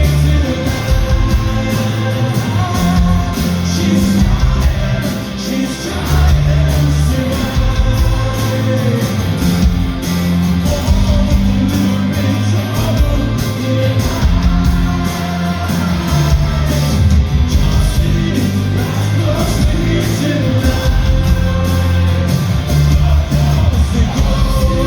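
Rock band playing live, loud and continuous, with singing over the band.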